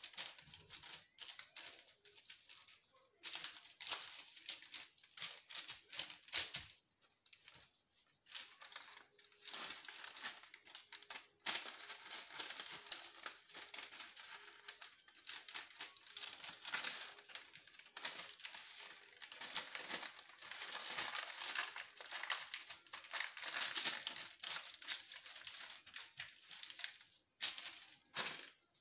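Baking paper crinkling and rustling as hands fold and wrap it around a piece of dough, in near-continuous crackles broken by a few short pauses.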